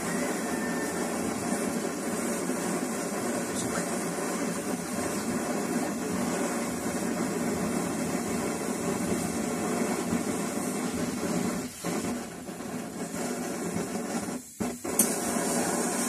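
Pressurized diesel stove burner running with a steady rushing noise while it is still warming up, its flame yellow and a priming flame still burning beneath the burner. The noise dips briefly twice near the end, and there is one sharp click just before it ends.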